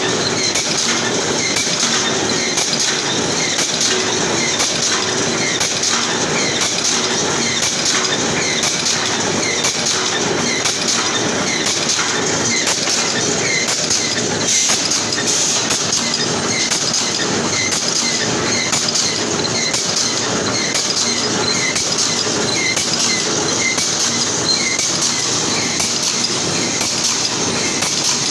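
Brick force wire mesh welding machine running, a steady mechanical clatter with regular clicks repeating throughout.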